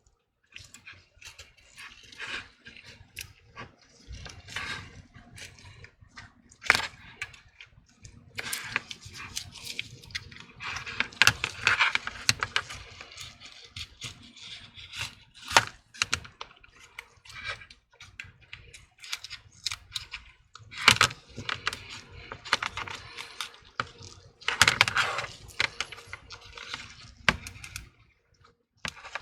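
A metal prying tool scraping and clicking against an iPhone 12's frame and screen edge while cutting through the screen adhesive. Sharp irregular clicks, with several longer stretches of scratchy scraping.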